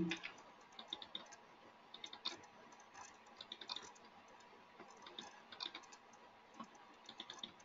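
Faint computer mouse clicks, single and in quick pairs as of double-clicking, scattered through a quiet stretch.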